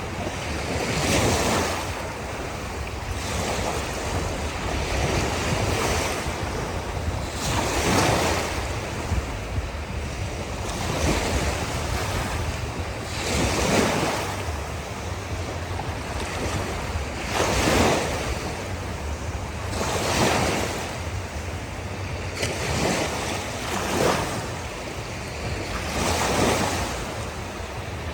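Ocean waves breaking and washing in on a beach, over a steady hiss of surf, with a louder surge every few seconds.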